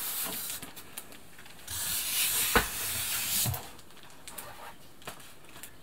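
Packaging being handled as a sewing machine in its polystyrene base and plastic wrap is pulled up out of a cardboard box: rustling and scraping that is loudest in the middle, with a sharp knock about two and a half seconds in and small clicks.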